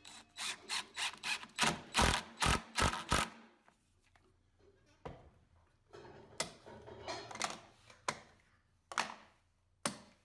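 Plastic trigger-style bar clamps being worked and handled on a plywood sled. A quick run of about ten sharp clicks and knocks fills the first three seconds, some with a dull thump, then single knocks and clicks come every second or so.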